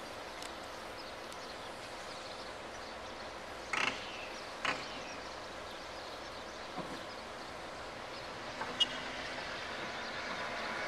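Distant diesel locomotive approaching over steady outdoor background noise, its engine sound coming in faintly and growing louder near the end. Two short, sharp sounds come about four seconds in.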